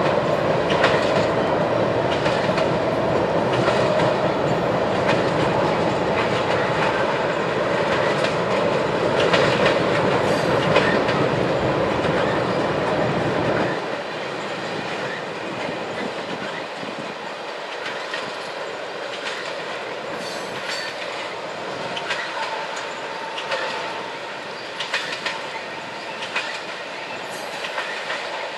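Railroad cars rolling past on the track, their wheels clicking over the rail joints. About halfway through, the deep rumble drops away suddenly and the clicking carries on a little quieter.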